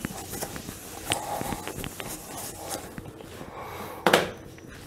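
Felt whiteboard duster rubbing over a whiteboard in quick strokes as a diagram is wiped off, then a single short loud thump about four seconds in.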